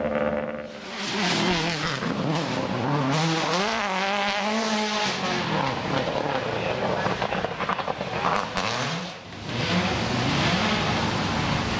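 Subaru Impreza WRC rally car's turbocharged flat-four engine driven hard, its revs rising and falling over and over through gear changes and corners.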